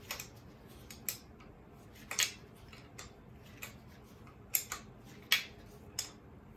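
A hand wrench working the exhaust mounting bolts on a Honda Express moped: sharp metal clicks and taps at irregular intervals as the tool is set on and turned, two coming close together about four and a half seconds in.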